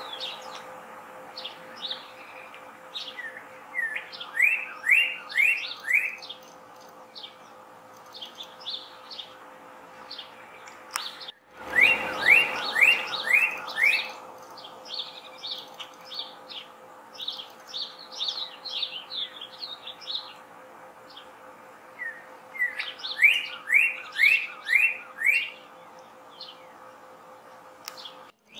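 Male northern cardinal singing: three phrases, each a quick run of four or five slurred whistles, with pauses of several seconds between them.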